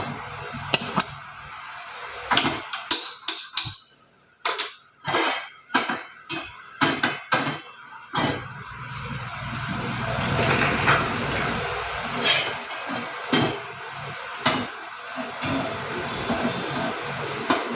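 Cookware and utensils clattering: a quick run of sharp metal knocks and clinks, then a steady hiss that builds up through the second half, with a few more scattered clinks.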